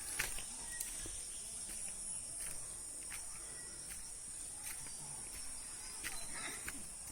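Insects chirring steadily at a high pitch, with scattered faint clicks and taps.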